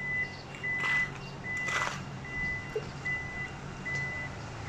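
A Toyota Alphard's power tailgate is closing while its warning buzzer beeps a steady high tone a little more than once a second. A louder clunk comes near two seconds in.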